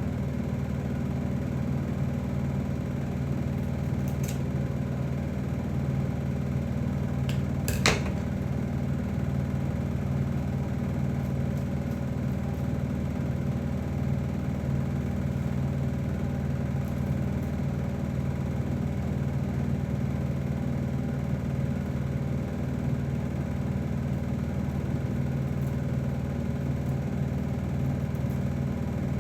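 Steady whir of a running motor with a low, even hum that does not change, broken by a sharp click about eight seconds in.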